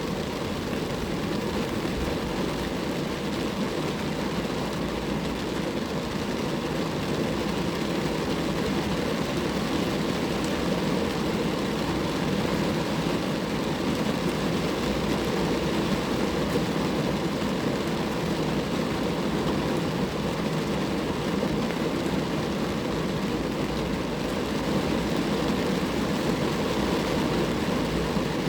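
Rain falling steadily on a car, a constant even rush of drops with no breaks or changes.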